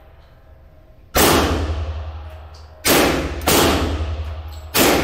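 Three loud handgun shots about a second and a half apart, with a fainter bang between the second and third, each ringing on in the echo of a concrete indoor range.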